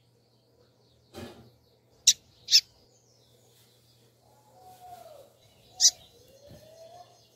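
Female double-collared seedeater (coleiro) giving short, sharp calling chirps: two about two seconds in, half a second apart, and one more near six seconds. A soft thump comes about a second in.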